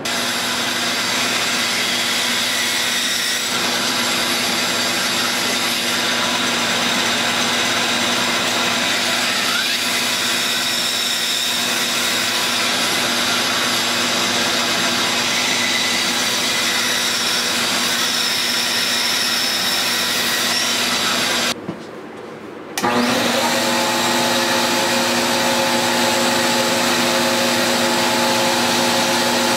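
Electric power tool with its motor running steadily at a constant pitch. It is switched off for about a second about 21 seconds in, then started again, spinning back up to a slightly different steady pitch.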